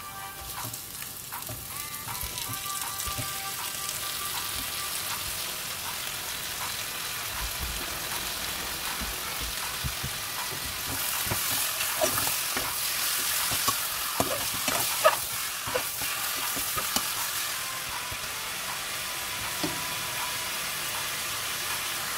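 Raw chicken thighs sizzling as they fry in hot oil with sautéed onion and garlic, while a spatula stirs them, scraping and knocking against the pot. The sizzle grows louder about halfway through, with most of the spatula knocks in the middle.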